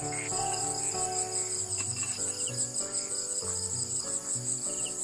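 Crickets chirring steadily in a high, finely pulsing trill, under soft instrumental background music with a slow melody and bass line.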